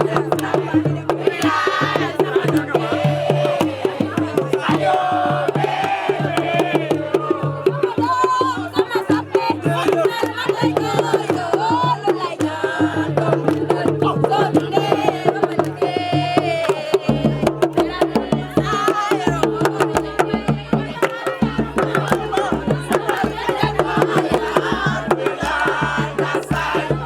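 Music with fast hand-drum percussion and singing over a steady low drone; a deeper bass comes in about two-thirds of the way through.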